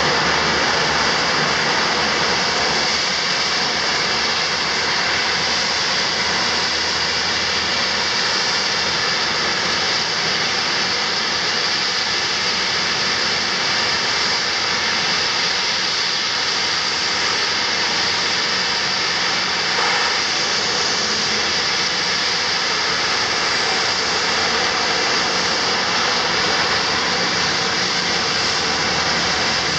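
The twin Garrett TPE331 turboprop engines of a Dornier 228 running at low power while the plane taxis, a loud steady turbine whine with a high tone over a rushing noise.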